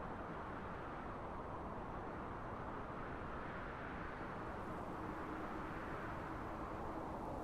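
Steady wind, an even low rushing that swells gently, with most of its weight in the low and middle range. A faint steady hum joins it about five seconds in.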